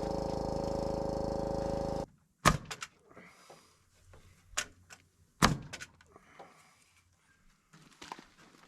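A steady machine hum with a strong pitch stops abruptly about two seconds in. It is followed by a few sharp knocks or thuds, the two loudest about three seconds apart, with faint handling noise between.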